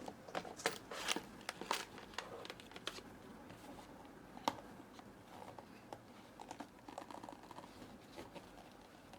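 Packaging being opened by hand: plastic wrapping crinkling and tearing in quick, irregular crackles, densest in the first three seconds, with one sharp click about halfway through and lighter crinkling after it.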